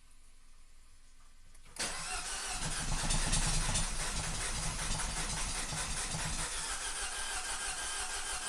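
2012 Mini Cooper S Countryman's turbocharged 1.6-litre four-cylinder being cranked by the starter for several seconds, beginning about two seconds in, with a regular pulsing beat. It will not fire up: a severe several-cylinder misfire.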